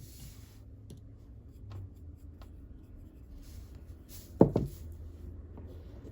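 Scratchy rubbing and small clicks of hands cleaning the underside of an old Kenmore sewing machine, with one sharp knock about four and a half seconds in.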